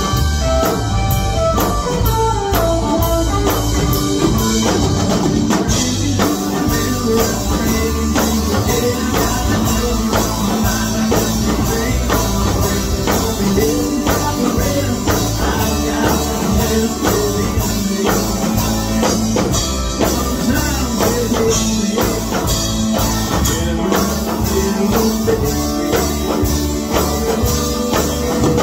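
Live rock band playing: electric guitars, bass guitar and drum kit, with a singer's voice over the band at times.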